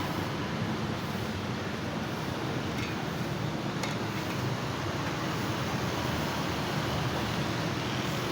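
Steady roadside traffic noise: a continuous low rumble of passing vehicles.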